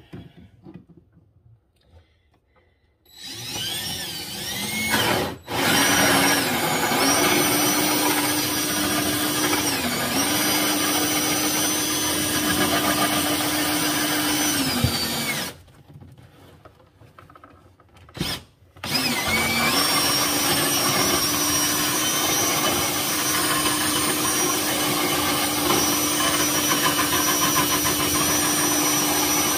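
Cordless drill running a hole saw up through the bottom of a wall cabinet: a steady motor whine whose pitch sags each time the saw bites. It starts about three seconds in, breaks off briefly, stops for a few seconds past the middle apart from one short burst, then runs on steadily.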